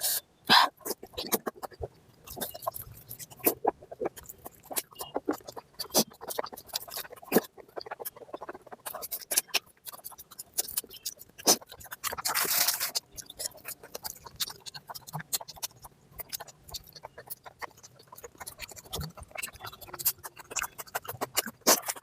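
Close-up eating sounds: wet chewing and lip-smacking over mouthfuls of oily mutton fat curry and rice, an irregular run of small clicks, with a longer rushing noise a little past halfway.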